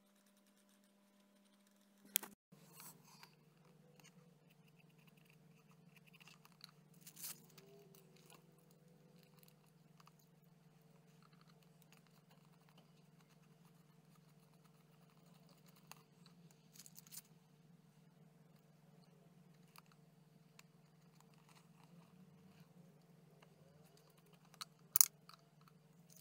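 Faint brushing and paper rustle as a glue brush works decoupage paper onto a cardboard model, over a steady low hum. A few sharp knocks break in, one about two seconds in and the loudest near the end.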